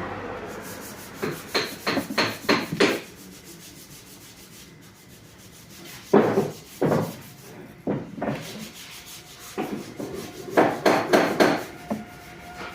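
Wood being rubbed by hand with an abrasive in short back-and-forth strokes. They come in groups: about six quick strokes near the start, a few in the middle and a faster run near the end.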